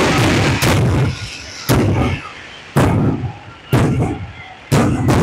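Aerial firework shells bursting overhead: a string of loud bangs about a second apart, each trailing off in a fading rumble, thickest in the first second.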